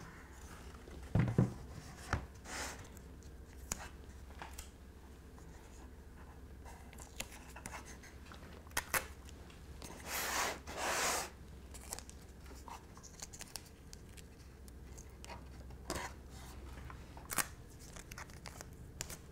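Masking tape pulled off the roll and torn, two short rips about ten seconds in, among light taps and clicks of an MDF cabinet being handled on a cutting mat. A heavier knock about a second in as the cabinet is set down.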